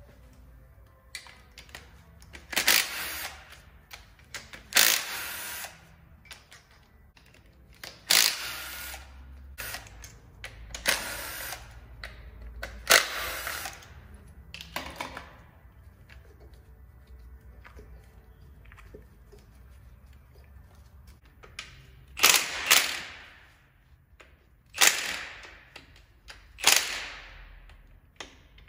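Cordless impact driver run in about nine short bursts, each about a second long, backing out the bolts on a Ford 3.5 EcoBoost V6's valve cover and front cover. There is a long pause between the bursts midway.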